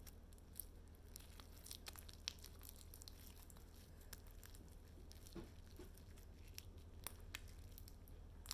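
Glue-based fluffy slime being stretched and pulled apart by hand, giving faint, scattered sticky crackles and squishes.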